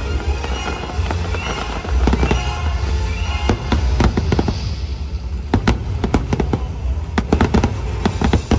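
Aerial fireworks display bursting overhead: a deep continuous rumble with sharp cracks that come thick and fast from about halfway through, over the show's music soundtrack.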